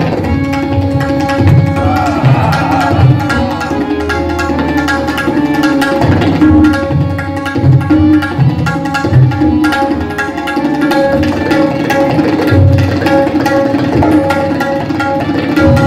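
Tabla solo in the 16-beat teentaal cycle: fast, dense strokes on the treble drum over deep, ringing bass strokes. A keyboard accompaniment of sustained notes runs underneath.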